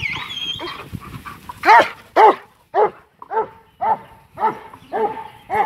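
Working sheepdog barking steadily at sheep in a yard, about two barks a second from a second and a half in.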